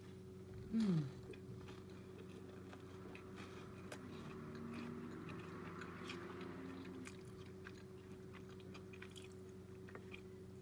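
Chewing a bite of toasted bread topped with chicken salad, with small crunches scattered throughout. About a second in, a short voiced sound falling in pitch is the loudest thing. A steady low hum runs underneath.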